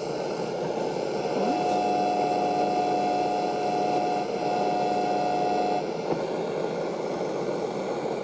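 Vintage Bush transistor radio hissing with static as it is tuned. A steady whistle tone comes in about a second and a half in and stops about six seconds in.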